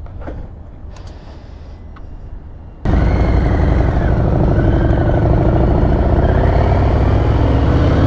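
Harley-Davidson Heritage Classic's V-twin engine idling as a low rumble, then from about three seconds in much louder as the motorcycle rides away under throttle, its pitch rising and falling, with wind noise.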